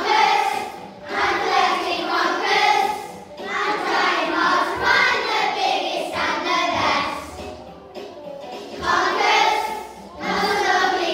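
A group of primary-school children singing together, in phrases of a few seconds with short breaks between.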